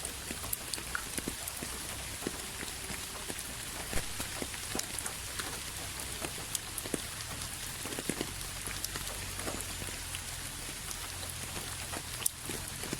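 Steady rain, a continuous hiss with many separate drops ticking sharply on a surface.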